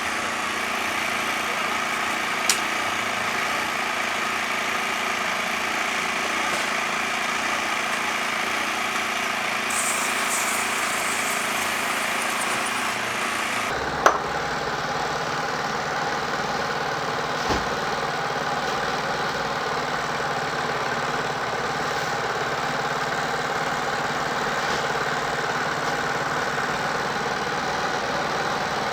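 A small engine idling steadily. About halfway through, the sound changes abruptly in character, and a few short sharp clicks occur.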